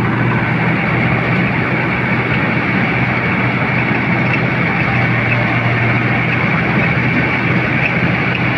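Mahindra tractor's diesel engine running steadily under load, driving a front-mounted paddy reaper whose cutter bar clatters through the standing rice. The sound is loud and even, with a constant low hum and a steady high whine.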